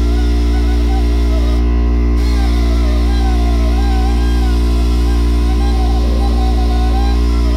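Background music: a wavering melody over a steady low drone.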